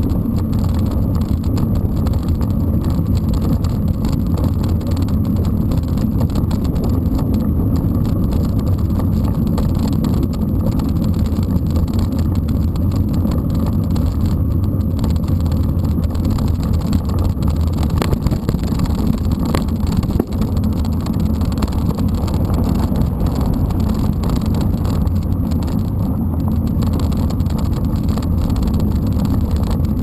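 Wind buffeting an action camera's microphone on a moving mountain bike, with the tyres rolling over a dirt road: a steady low rumble. Two faint clicks come about a second and a half apart, past the middle.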